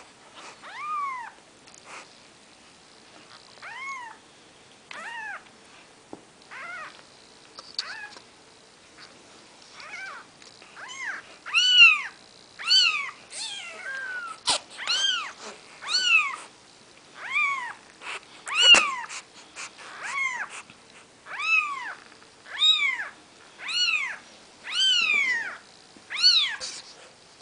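Four-day-old Maine Coon kittens mewing: high, thin cries that each rise and fall in pitch. They come sparse and soft at first, then from about a third of the way in they get louder and come about once a second.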